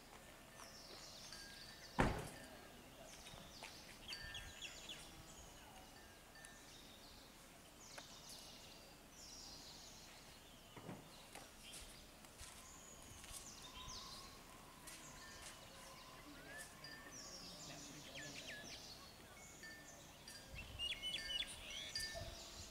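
Faint outdoor background with small birds chirping and calling on and off, busier near the end. A single sharp knock about two seconds in.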